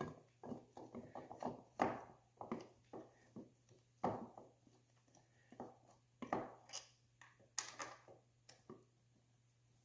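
Scattered light clicks, taps and knocks of metal brake parts and hand tools being handled, irregular with short pauses, as the front brake caliper and rotor are fitted back on.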